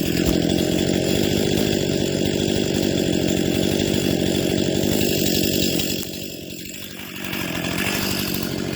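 Chainsaw running at high throttle cutting through a tree trunk, easing to a lower speed about six seconds in, then revving back up.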